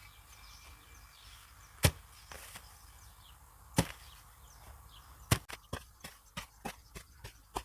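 A digging tool striking hard, dry ground: three heavy blows about two seconds apart, then a run of lighter, quicker strikes, about three a second, from about five seconds in.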